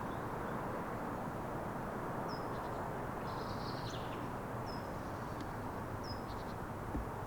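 A small bird calls three short, high, down-slurred chirps and one brief trill. Under them runs a steady rumble.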